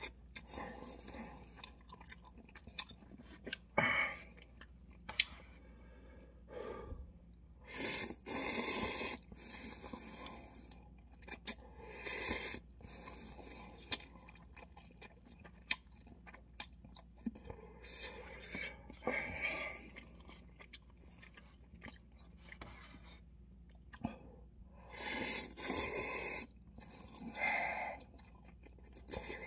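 Instant cup ramyeon noodles being slurped and chewed with chopsticks: a loud slurp every few seconds, with quieter chewing and mouth sounds between.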